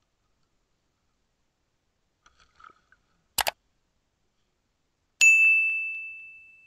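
Subscribe-button animation sound effects: a few faint ticks, a quick double mouse click about three and a half seconds in, then a single notification-bell ding at about five seconds that rings out and fades over a second and a half.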